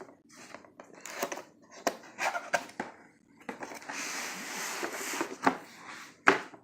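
A cardboard box being opened by hand: scattered clicks and knocks of handling, with a couple of seconds of rustling, crinkling packaging in the middle.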